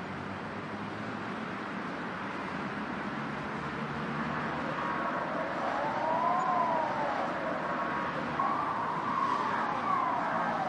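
City street ambience: a steady wash of road traffic noise, with an emergency-vehicle siren coming in about halfway. The siren gives two slow rising-and-falling wails.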